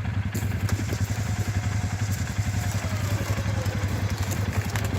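ATV engine idling steadily with an even, pulsing low rumble. A faint high whine slides slowly down in pitch through the middle.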